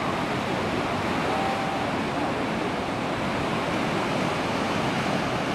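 Sea surf breaking and washing over a rocky, boulder-strewn shore: a steady rushing wash of waves.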